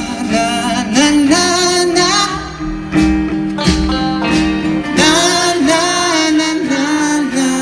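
Live band music: a male lead singer sings long, wavering held notes over strummed guitar.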